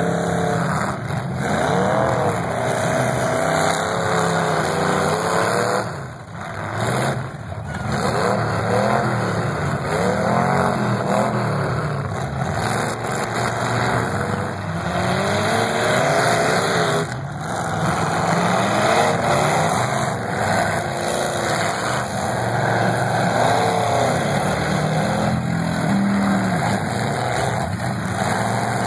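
Demolition derby cars' engines running and revving hard, their pitch rising and falling over and over as several cars accelerate and push against each other in dirt.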